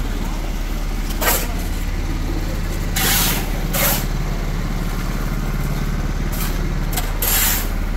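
An engine running steadily at a constant speed, with a few short, sharp rasping noises on top.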